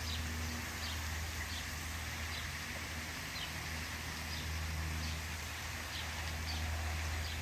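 Italian honeybees humming faintly around an open hive over a steady low rumble, with short high bird chirps every second or so.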